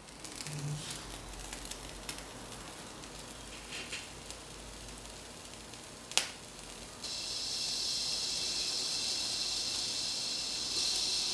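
A few light knocks as a small wick burner is set under the tin-can aeolipile. From about seven seconds in comes a steady high hiss, a little louder near the end, as steam starts to jet from the can's narrowed nozzles.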